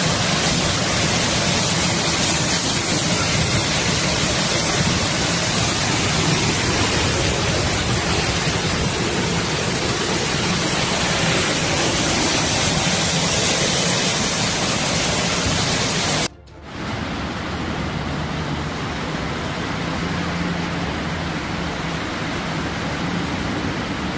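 Torrential rain pouring down, a loud, steady rushing hiss of water. It drops out for a moment about two-thirds of the way through and comes back slightly quieter.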